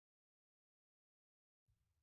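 Near silence: the soundtrack is muted, with only a very faint trace just before the end.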